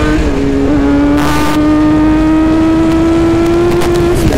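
Kawasaki Z1000 inline-four engine pulling hard at high speed, its pitch climbing steadily, then dropping sharply at an upshift just before the end. There is a short hiss about a second in.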